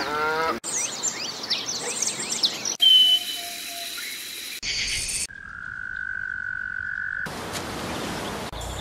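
A quick series of unrelated sound clips joined by hard cuts: first a dense chorus of chirping animal calls, then a few seconds of steady pure tones, then an even rush of noise from waves breaking on a beach near the end.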